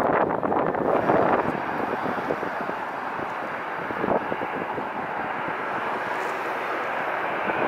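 Jet engine noise from a Bombardier CRJ-200 regional jet's two rear-mounted turbofans as it turns onto the runway: a steady rushing, gusty and uneven for the first second or so, then even.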